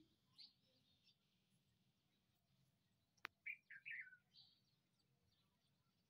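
Rose-ringed parakeet giving a few short, soft chirps about three and a half seconds in, just after a single sharp click; otherwise near silence.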